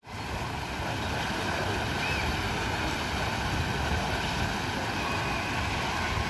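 Water from a row of low fountain jets splashing steadily into a pool.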